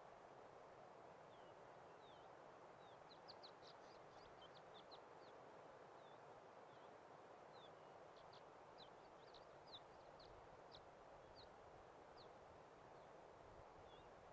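Faint songbird chirps: short high notes, coming in two quick runs of rapid chirps a few seconds apart and otherwise scattered singly, over a steady faint hiss of open-air ambience.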